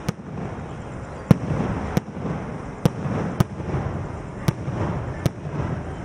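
Aerial fireworks shells bursting close by: about seven sharp bangs at uneven intervals, with echoes and rumble filling the gaps between them.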